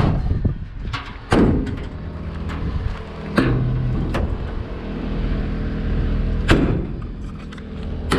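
Metal compartment doors on a truck's utility service bed being slammed shut and latched: about four sharp slams, a second to three seconds apart, over a steady low hum.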